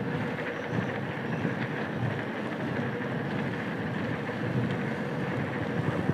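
Steady rushing noise of a mountain bike being ridden on a wet road in light rain: tyre hiss on the wet surface mixed with rain.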